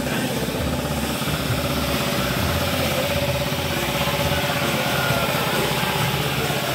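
An engine running steadily at idle: a loud, even, low rumble.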